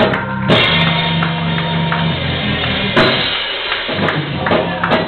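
Live church band playing: a keyboard holds sustained chords under a drum kit, with cymbal crashes about half a second in and about three seconds in.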